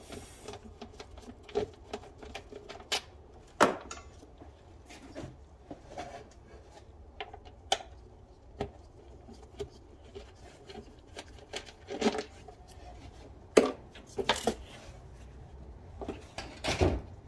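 Plastic engine cover being unfastened and lifted off a 3.5 V6: irregular clicks, taps and rattles, with a few sharper knocks scattered among them, the loudest about three and a half seconds in and again near the end.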